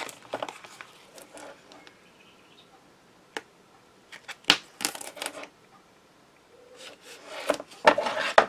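Card and double-sided tape being handled while the tape is stuck down: scattered taps, clicks and rustles, with a single sharp click a little over three seconds in and short clusters of rustling in the middle and near the end.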